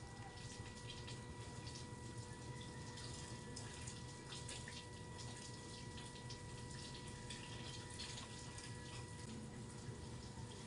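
Quiet room tone: a low steady hiss with a faint steady whine and light scattered crackles.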